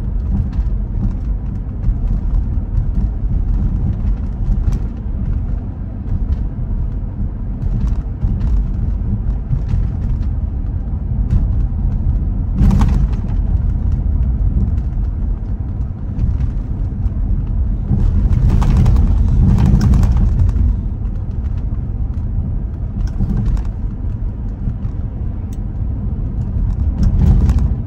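Car driving on a wet road, picked up by a dash cam: a steady low road rumble with scattered light ticks. A brief louder swish comes about 13 seconds in and a longer one a few seconds later.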